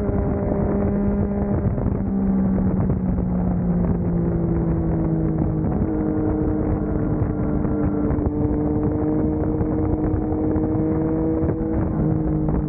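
Motorcycle engine running at road speed, with wind rushing over the microphone. The engine note holds steady, shifts pitch about halfway through, then slowly climbs.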